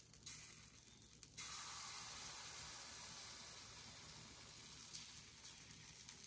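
Faint sizzling of buttermilk pancake batter frying on a hot stovetop griddle as fresh batter is poured; it gets louder about a second and a half in and then holds steady.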